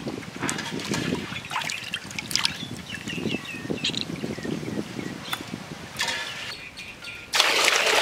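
Hands squeezing and swishing pieces of beef in a basin of water, with water dripping and splashing back into the basin. Near the end, a loud steady rush of water poured into an empty aluminium pot starts suddenly.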